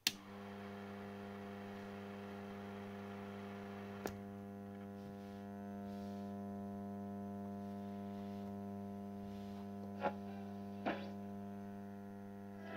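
Riviera stereo radio-phonograph suitcase switched on with a sharp click, its amplifier then giving a steady mains hum through the speakers, with a few short clicks as its knobs are handled.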